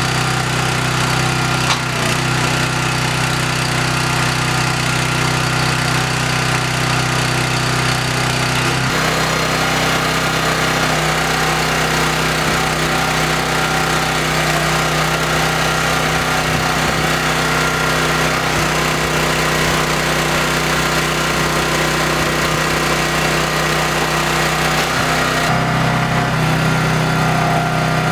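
A 37-ton hydraulic log splitter's small gas engine running steadily. Its note changes about nine seconds in and changes back near the end.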